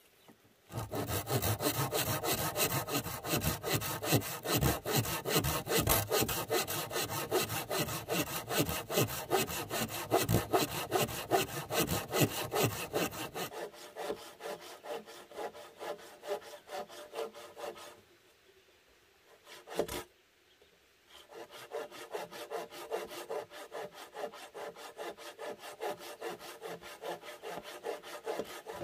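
Hand pruning saw cutting through a log in quick back-and-forth strokes. The strokes are louder in the first half, stop for a few seconds about two-thirds of the way through with a single short click, then start again.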